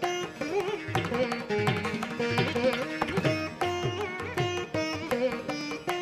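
Background instrumental music in Indian classical style: a plucked-string melody with bending notes over a steady hand-drum rhythm.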